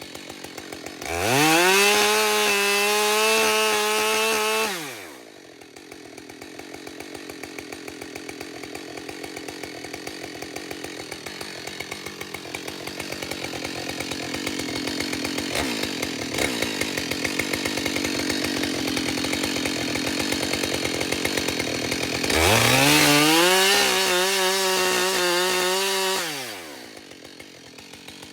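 Husqvarna 572 XP two-stroke chainsaw idling, revved up to full throttle for about four seconds twice, first about a second in and again near the end, each time dropping back to idle.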